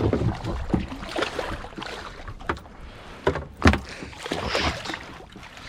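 Splashing and irregular knocks on a kayak as a hooked pike is landed, with two loud knocks about three and a half seconds in.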